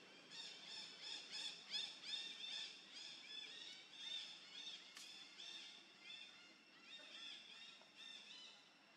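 A faint, rapid series of short, high-pitched arched animal calls, about three a second, with one sharp click about five seconds in.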